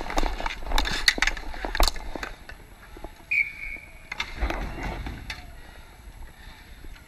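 Dek hockey play on a plastic-tile sport court: quick clacks of sticks and ball and sneaker steps, thinning out after about two seconds. A short high squeal about three seconds in.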